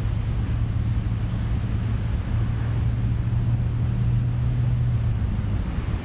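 Stormy ocean surf and wind: a steady rush of waves over a deep, constant rumble that swells a little in the middle.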